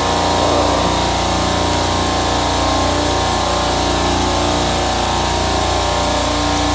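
Refrigeration compressor rack running, a steady machine hum that does not change.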